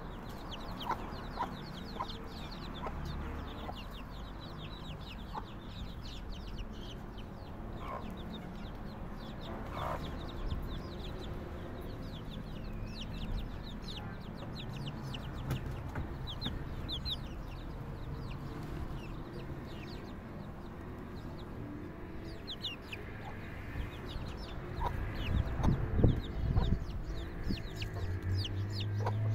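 Baby chicks peeping constantly in quick, high chirps, with a mother hen clucking low among them as she gathers the chicks under her. A louder low noise comes near the end.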